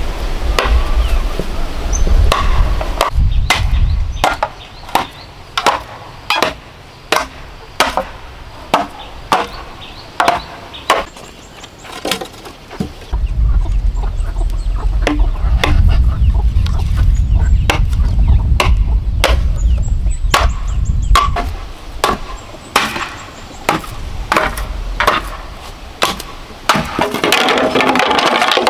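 Machete chopping and trimming green bamboo stakes in steady, repeated sharp strokes, about one to two a second. A low rumble comes and goes underneath.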